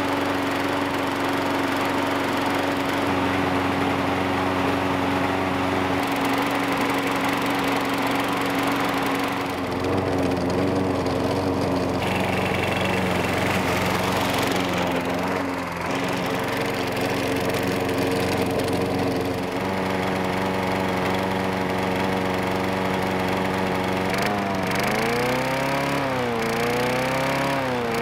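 Push lawn mower's small engine running on isopropyl alcohol instead of gasoline, a steady engine hum. Near the end its speed wavers up and down twice, surging rather than running smoothly.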